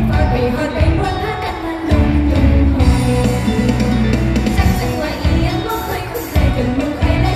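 Live idol-pop song played loud through the stage sound system: female vocals sung into a handheld microphone over backing music with heavy bass and drums.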